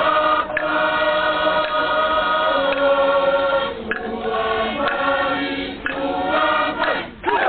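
Group of voices singing a Tongan chant for a paddle dance in long held notes in harmony, with short breaks between phrases.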